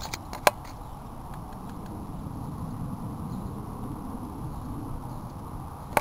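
Steady outdoor background noise, a low rumble, with a sharp click about half a second in and another at the end.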